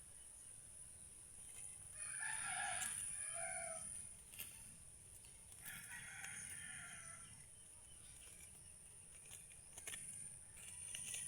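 A rooster crowing twice, each crow lasting about two seconds, a few seconds apart.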